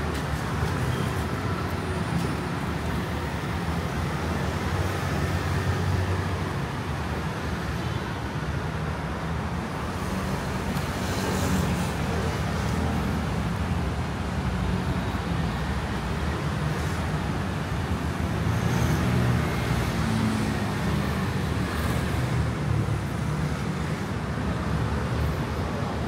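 Steady city street traffic: scooters and cars passing along the road, rising and easing as they go by.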